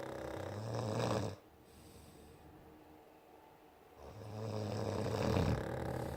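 Snoring: one long snore that stops about a second in, then a second snore that builds from about four seconds in and lasts about two seconds.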